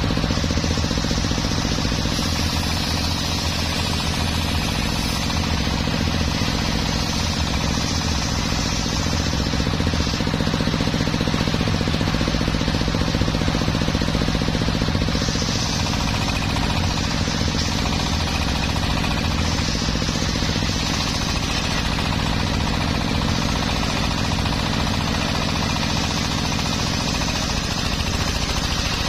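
Engine-driven circular sawmill blade ripping a teak log, a loud steady whine and rasp of the saw in the wood over the drone of its power unit, with no pauses.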